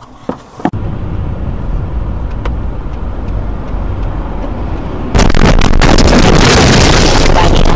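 Car driving noise picked up by a dashcam: a steady rush of engine and road noise, which jumps suddenly to a much louder, harsher rush about five seconds in.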